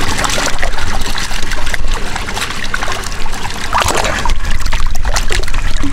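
Water sloshing and splashing in a large aluminium pot as raw chicken pieces are washed and squeezed by hand, with water dripping and trickling. The splashing is steady throughout.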